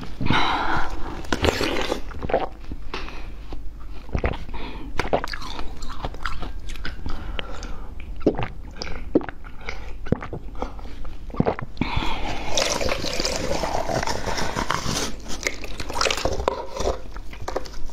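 Close-miked mouth sounds of eating firm jelly: wet sucking, slurping and biting with many sharp clicks and squelches. About two-thirds of the way through comes a longer, denser run of squelching as the jelly is squeezed up out of its plastic bottle.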